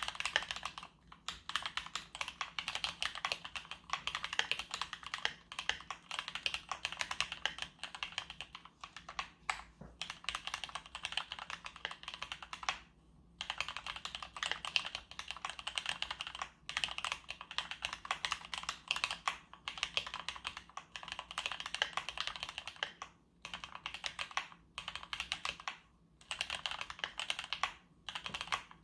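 Keychron K2 aluminium-frame mechanical keyboard with red (linear) switches being typed on quickly and continuously: a dense run of key clacks, broken by short pauses every few seconds.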